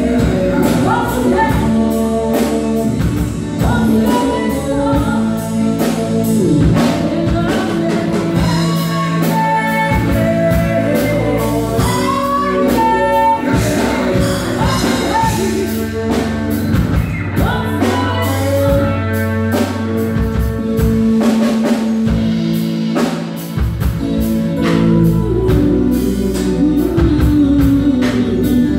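Live band playing: a singer over electric guitars, bass guitar, keyboard and drum kit, with a steady drum beat.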